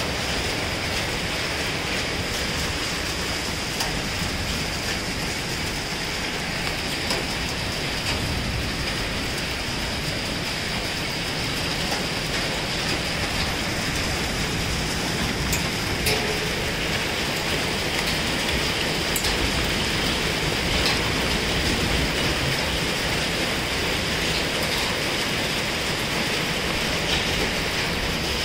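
Heavy rain mixed with hail falling, a steady hiss with a few sharp ticks.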